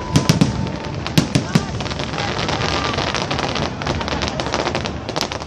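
Fireworks going off: a quick run of sharp bangs in the first second and a half, then dense crackling with scattered pops.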